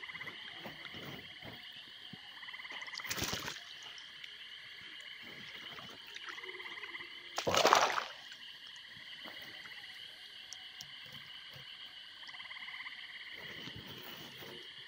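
Frogs calling at night in short pulsed trills, repeating about every few seconds over a steady high-pitched chorus. Two brief loud noises cut across it, about three seconds in and again near the middle, the second the loudest.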